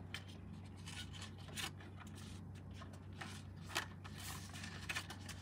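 Paper rustling and crinkling as cards are pulled out of a paper envelope and handled, in short scattered bursts with one sharper tick near the end.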